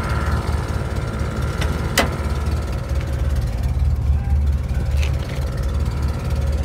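1988 Toyota pickup's 22R four-cylinder engine, fitted with a Hooker header, idling with a low, steady rumble. A single sharp click about two seconds in, with fainter clicks around it.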